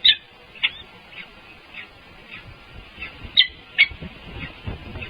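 A bird's short, high calls repeated about every half second, with louder calls at the start and about three and a half seconds in.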